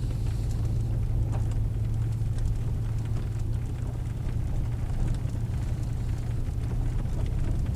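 A vehicle driving slowly up a rough dirt and gravel road: a steady low engine and road drone with scattered light knocks and rattles from the bumpy surface.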